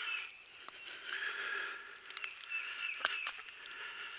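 Night chorus of calling wildlife, with short chirps repeated over a steady buzzing din. A couple of sharp clicks about three seconds in.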